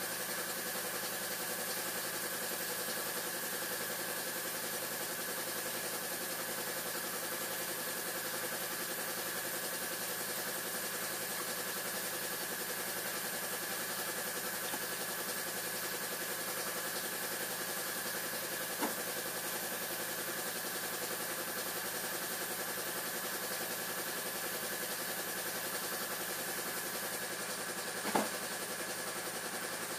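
A steady mechanical hum, even in level throughout, with a small knock about two-thirds of the way in and another near the end.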